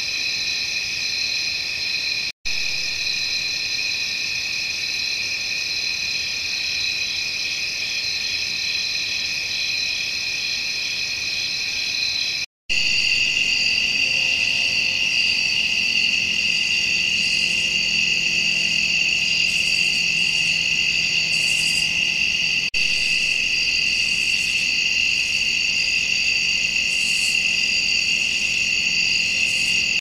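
Steady, high-pitched chorus of night insects such as crickets. It breaks off briefly twice where recordings are joined, and after the second break it is louder, with a different mix of pitches.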